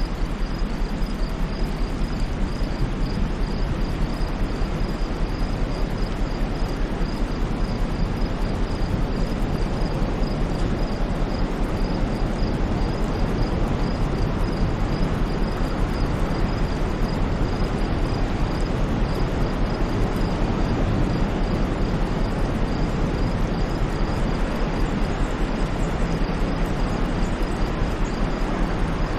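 Steady white noise: an even, unbroken hiss with a deep rumble under it and no rise and fall of waves. A faint high pulsing repeats a few times a second over it.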